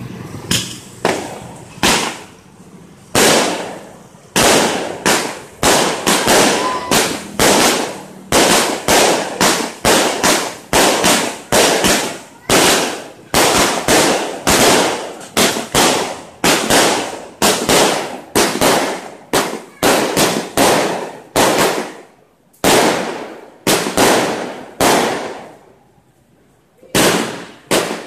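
Aerial fireworks going off in a rapid run of shots, each a sharp bang that trails off, about one to two a second. The first few seconds are sparser, and there is a short lull near the end before the shots resume.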